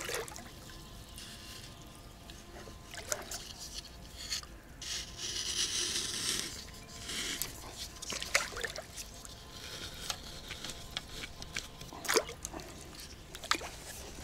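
Fishing gear being handled and moved: irregular scraping and rustling with a few sharp knocks, and a longer stretch of rustling hiss in the middle.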